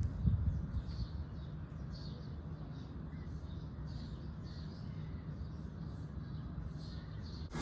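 Birds calling, short calls repeated over and over at irregular intervals, over a steady low rumble.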